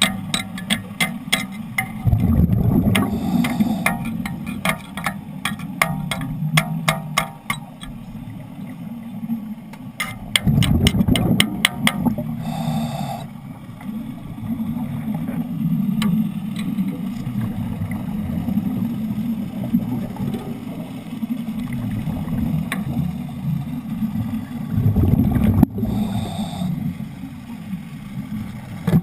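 Underwater wet stick welding with Broco electrodes: the arc crackles in rapid runs of sharp clicks over a steady low rumble of bubbling gas. Louder surges of bubbling come a few times.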